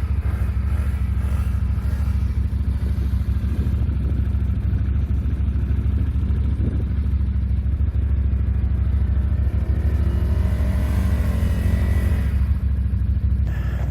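ATV engine running steadily under way, a strong low drone. The revs rise and fall briefly from about ten seconds in.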